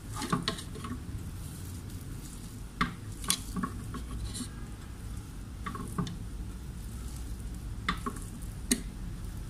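Raw minced mutton being pushed by hand into the plastic bowl of an electric mini chopper: soft handling noise with about six sharp taps against the plastic bowl, over a steady low background hum. The chopper is not running.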